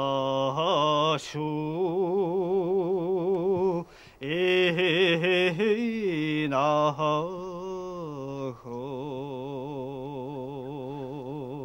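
A solo male voice singing long, drawn-out notes with a heavy wavering vibrato, with a short break for breath about four seconds in.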